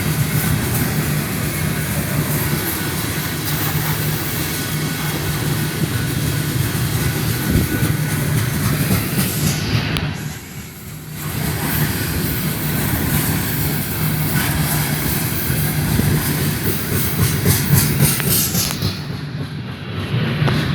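BNSF coal train's cars rolling past, a steady rumble with a rhythmic clickety-clack of wheels over the rail joints. The sound dips briefly about halfway through.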